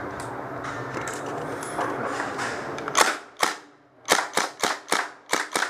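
Arms Revolution KG9 green-gas blowback airsoft gun firing about nine sharp shots in quick, slightly irregular succession, starting about three seconds in. A steady background din comes before the first shot.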